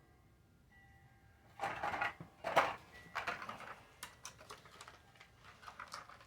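Pliers and wires being handled during electrical work: an irregular run of clicks, snaps and rustles that starts about one and a half seconds in.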